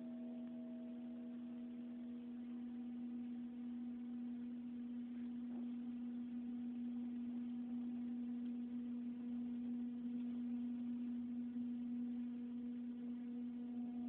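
Steady machine hum: one strong low tone with several fainter higher tones, held unchanged and growing slightly louder toward the end.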